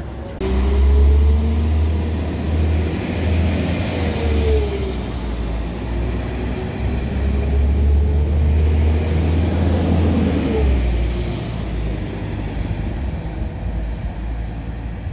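Transport for Wales Class 197 diesel multiple unit pulling out of the platform: a deep engine rumble with an engine note that rises as it accelerates and drops at a gear change about four seconds in and again about ten seconds in. The sound then eases as the train draws away.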